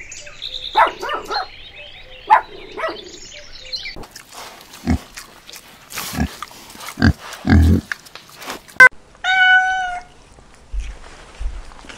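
Kittens mewing in short calls, then piglets grunting and snuffling. About nine seconds in a cat gives one steady, drawn-out meow.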